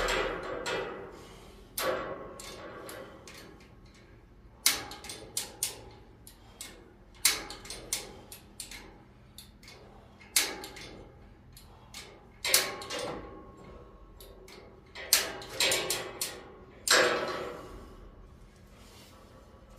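Metal clanks and chain rattles from a hand-hauled chain hoist against a steel rack frame, coming in short groups every two to three seconds, each clank ringing briefly.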